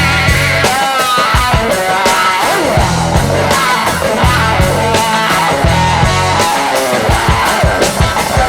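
Music with a steady pulsing beat under distorted, guitar-like tones, some of them gliding in pitch.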